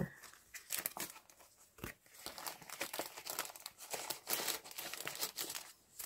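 Paper pages and cards of a handmade junk journal rustling and crinkling as they are handled and turned, a dense run of irregular crackles from about half a second in until just before the end.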